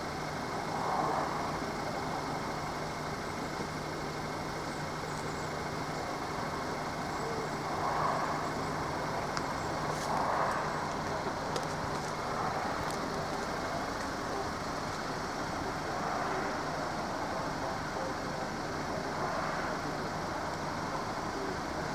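Steady road traffic noise, with vehicles swelling past every few seconds.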